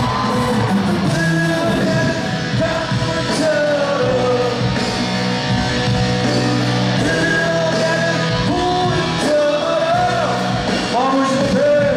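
Live rock-style pop song with a singer and full band, played loud through an arena's sound system and recorded from the audience.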